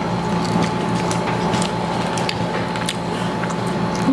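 Crispy fried chicken being torn and eaten close to a clip-on mic: scattered short crackles and clicks over a steady low hum.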